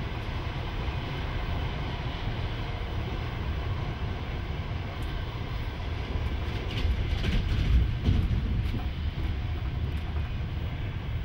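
Train running, heard from inside a carriage: a steady low rumble with a few clicks and rattles around the middle.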